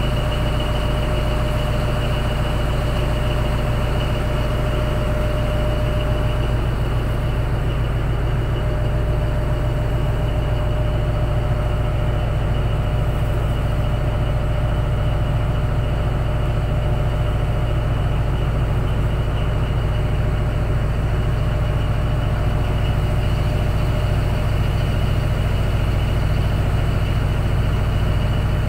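Tugboat's diesel engine running steadily under tow load, a deep even drone. A fainter steady whine sits above it for the first several seconds.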